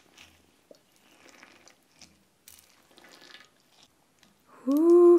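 Faint, soft squishing of clear slime as fingertips press star-shaped glitter into it in a tub, in short patches. Near the end a woman's voice comes in with a loud, drawn-out exclamation.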